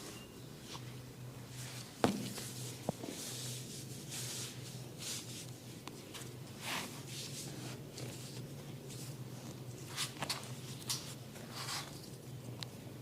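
Hands rubbing and stroking skin and hair during a head massage, soft swishing strokes about one or two a second. A sharp click comes about two seconds in, with a smaller one just after.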